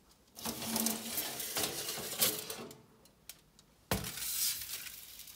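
Aluminium foil crinkling and metal stove parts clinking lightly as they are handled, in two spells, the second starting with a sharp knock about four seconds in.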